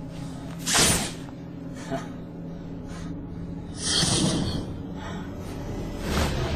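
Action-scene sound effects over a steady background music score: a sharp swish about a second in, a brighter hissing burst about four seconds in, and another swish near the end.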